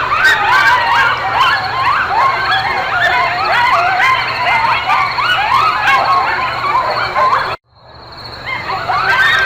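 Many animals calling at once: a dense chorus of short, high yelping calls that rise and fall in pitch and overlap one another. It cuts out abruptly about seven and a half seconds in and starts again a moment later.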